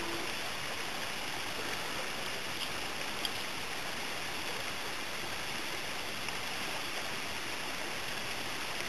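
Shallow creek water running steadily, an even rushing hiss with no rhythm.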